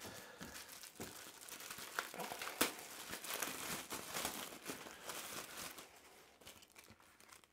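Packaging crinkling and rustling as bike parts are handled, with scattered light clicks; it stops about six seconds in.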